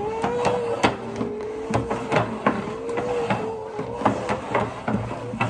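Plastic mixing bowls, turned upside down, being slid and spun around on a wooden tabletop by hand: a quick irregular run of scrapes and hollow knocks. A steady wavering tone runs underneath.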